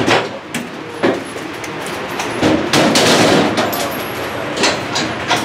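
Gunshots in an indoor shooting range, each crack followed by ringing off the hard walls. Single shots come at uneven intervals, with a quick run of shots near the middle.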